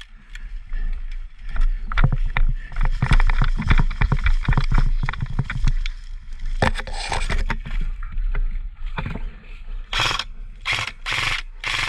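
Footsteps and rustling through dry grass and leaf litter, with gear scraping and knocking, as an airsoft player moves up and gets down prone behind a tree. Near the end come four short, sharp bursts of airsoft rifle fire.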